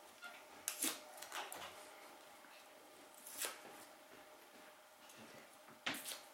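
A playing card being torn into small pieces by hand: a few short, faint rips spread over several seconds.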